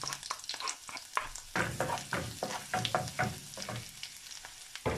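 Chopped garlic and onion sizzling in melted butter in a frying pan, stirred and scraped around the pan with many sharp knocks and scrapes of utensils against it.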